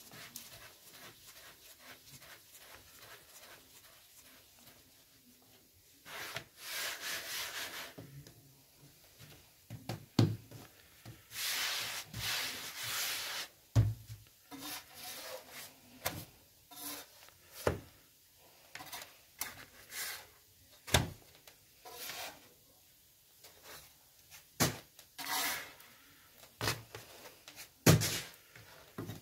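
Hands working dough on a floured wooden board: long dry rubbing strokes across the wood, with sharp knocks every few seconds as dough or a hand strikes the board.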